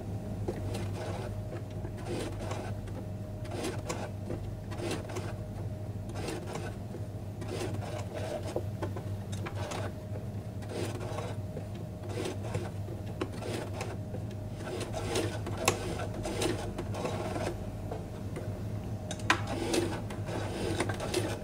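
Electric sewing machine stitching slowly through hard felt: the motor hums steadily under a run of needle strokes, with a couple of sharper clicks late on.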